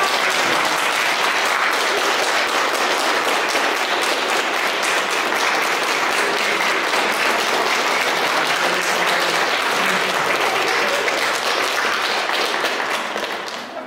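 Audience applauding steadily, a dense patter of many hands clapping that dies away near the end.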